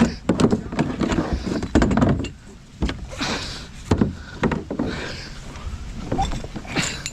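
Irregular hollow knocks and scrapes against a kayak hull, with a few louder knocks near the start, about two seconds in and about four seconds in.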